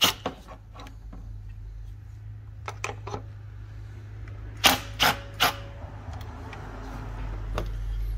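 Sharp metallic clicks and knocks from a socket tool working on the engine-bay fasteners: a few light clicks, then three loud ones close together about halfway through, over a steady low hum.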